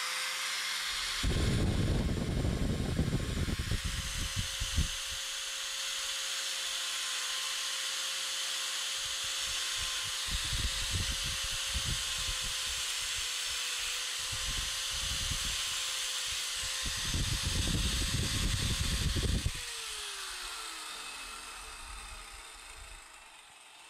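Small electric angle grinder running with a steady whine, its disc grinding in several rough bursts against the thin aluminum tube of a laser pointer. Near the end it is switched off and the motor winds down with a falling whine.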